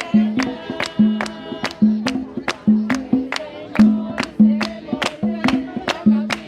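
Lively music with a steady, driving beat, about two to three drum strikes a second over a repeating bass note.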